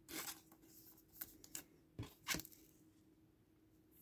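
Trading card being slid into a rigid plastic top loader by hand: a few short plastic scrapes and rustles.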